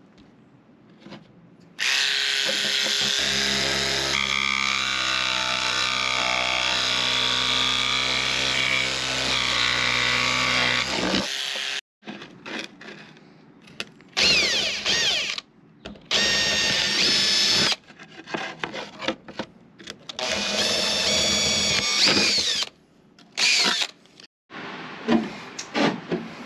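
Jigsaw cutting a thin carbon-fibre sheet steadily for about nine seconds, then an electric drill boring through the sheet in several short runs, its pitch sliding as it speeds up and slows.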